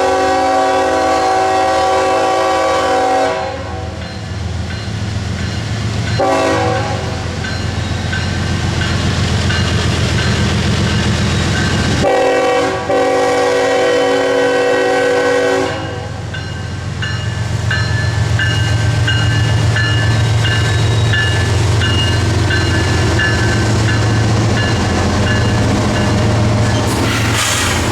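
Diesel freight locomotive horn sounding a long blast, a short blast and another long blast, the pattern that ends a grade-crossing signal, over the steady rumble of the locomotive's diesel engine.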